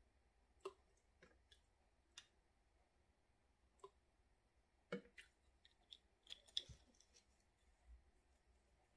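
Near silence broken by scattered faint clicks and taps as an oil bottle is handled and poured into a plastic measuring pitcher, with a cluster of clicks about five to seven seconds in.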